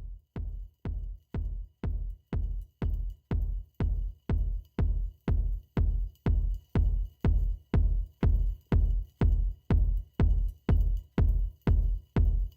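Background electronic dance music with a steady heavy bass beat, a little over two beats a second, fading in over the first few seconds.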